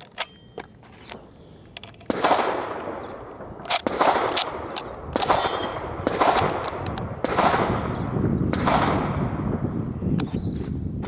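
Six rifle shots, one every second or so, each followed by a long echo that fades away. Short metallic rings come near the start and again in the middle.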